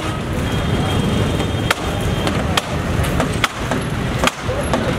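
Sharp knocks and clanks from a dismantled metal billboard frame being handled and trodden on, roughly one a second, over a steady street din.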